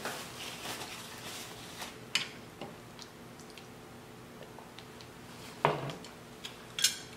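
Faint rustle of a paper napkin being wiped over the face, with a few small clicks, then a short low vocal sound a little before six seconds and a brief rustle near the end.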